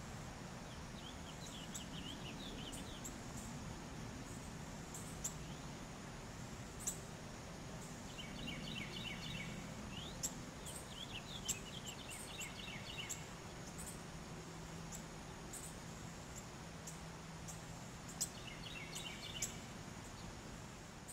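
Rural outdoor ambience: small birds chirping in short clusters of quick notes, over a low steady hum, with sharp high ticks now and then.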